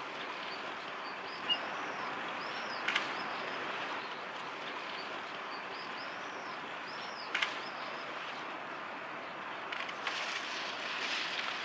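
Outdoor lakeside ambience: a small bird sings a short phrase of arched high notes twice over a steady hiss. A few brief sharp clicks stand out louder than the rest.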